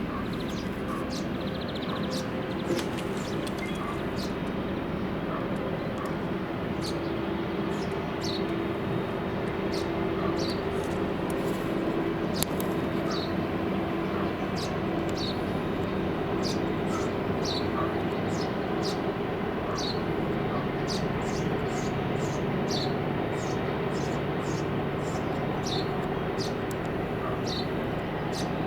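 Boat engine running steadily, a low even hum, with a bird chirping about once a second over it.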